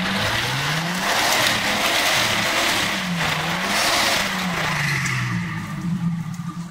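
Jeep Wrangler engine revving up and down under load while its tyres spin and scrabble in loose dirt and leaves, climbing out of a rut. The wheelspin is the kind that, one onlooker remarks, is where a locker comes into play.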